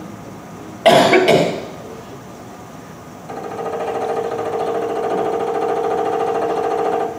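A brief loud clatter about a second in. About three seconds in, an electric power tool motor starts abruptly, runs at a steady pitch for about four seconds and stops abruptly.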